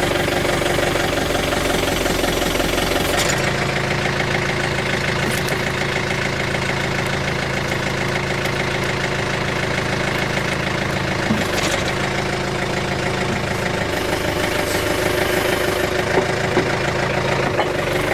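John Deere 110 TLB backhoe loader's diesel engine running steadily while the backhoe is worked. Its pitch shifts a few times as the hydraulics take load, and there are a couple of light knocks near the end as the bucket bites into the frozen ground.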